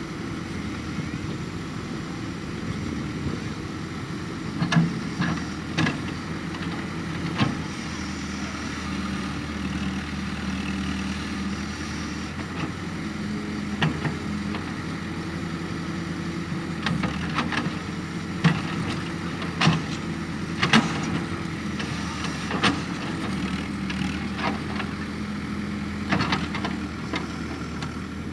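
Excavator's diesel engine running steadily, its note shifting a few times, with sharp knocks every few seconds.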